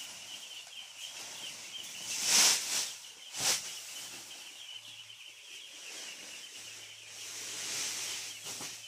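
Soybean meal pouring out of a woven plastic sack onto a heap of maize: a rushing, sliding hiss that swells about two seconds in and again near the end, with one sharp knock in between. A steady high chirping runs underneath.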